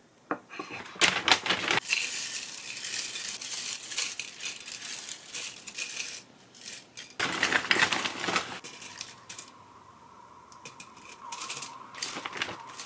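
Cornflakes being spooned and scattered onto a ceramic plate, a crisp crinkling rattle in two long spells, followed by a few light clicks of small items dropped onto the plate near the end.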